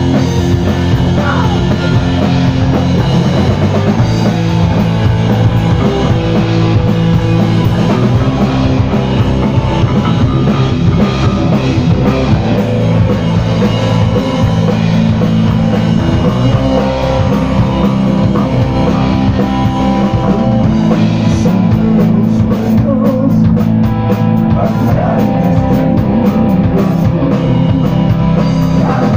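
Live punk-rock band playing: distorted electric guitar over a full drum kit.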